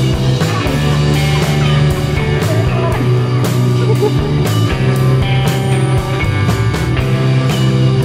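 Background rock-style music with sustained chords and a steady drum beat.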